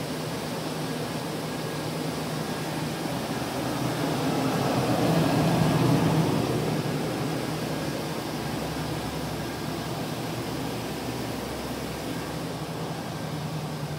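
1999 Chevrolet 1500 Z71 pickup's V8 engine idling steadily. It grows louder about five seconds in, heard close to the front grille, then eases off again.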